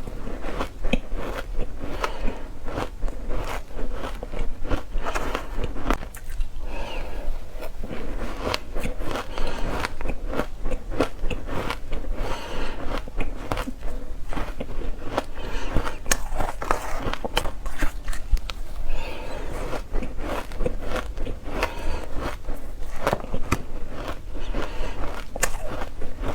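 Close-miked biting and chewing of frozen green matcha ice: a dense, continuous run of crisp, powdery crunches.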